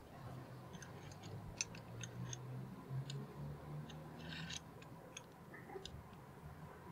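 Scattered light metallic clicks and ticks of small steel bench-vise parts being handled and fitted together during reassembly, with a short cluster of them a little past the middle and a faint low hum underneath.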